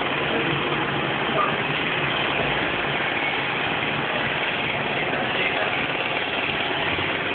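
Steady mechanical running noise at an even level.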